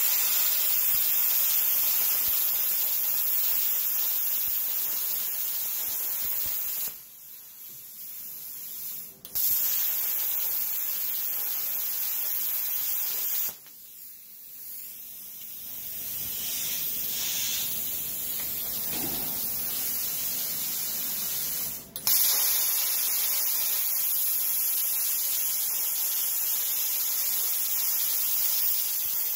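PrimeWeld Cut60 plasma cutter cutting steel plate at 60 amps, a loud, steady hiss of the arc and compressed air. It cuts off suddenly twice, about seven seconds in and again near the middle, and starts again abruptly each time.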